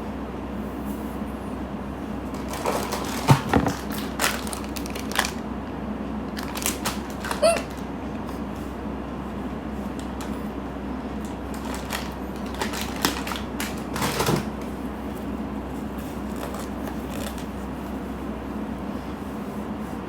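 Scattered short rustles and knocks over a steady low hum, with a single short hiccup about a third of the way in.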